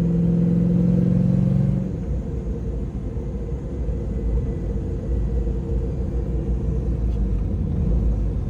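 Firebird's LS V8 engine idling with a low rumble; a steady hum over it cuts off about two seconds in.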